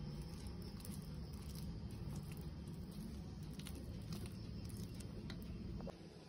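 Spatula stirring egg yolk into thick mashed potatoes in a pot: soft squishing with scattered light clicks and scrapes, over a low steady rumble that drops away near the end.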